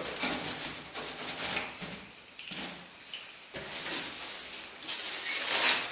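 A box cutter scraping and slicing through aluminium foil on a cardboard box, then the foil-lined box being lifted and handled, its foil crinkling and rustling loudest near the end.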